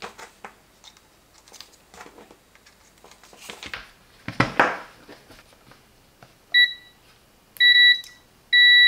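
Test leads handled with soft clicks and rustles, then the continuity beeper of a KAIWEETS HT208D clamp meter: a short beep, a half-second beep, and near the end a steady high beep as the probe tips touch, signalling a closed circuit.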